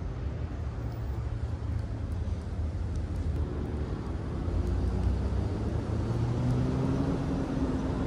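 Steady low rumble of road traffic, with a vehicle's engine drone rising in pitch and getting louder over the second half.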